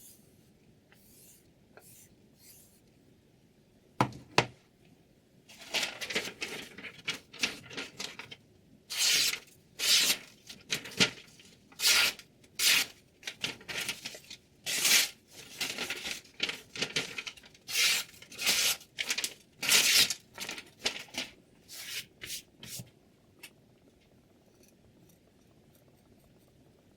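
A knife blade drawn in a quick series of short scraping strokes, about twenty of them, each well under a second. Two sharp clicks come just before the strokes begin, and the strokes stop a few seconds before the end.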